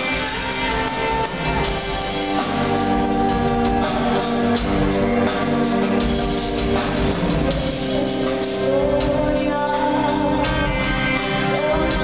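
Live rock band playing: guitars holding chords over drums, with a voice singing.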